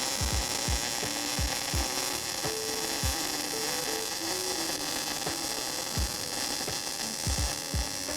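Electric welding arc burning steadily: a continuous crackling hiss broken by frequent irregular pops, as a bead is run along thin sheet metal at a deliberately slow travel speed.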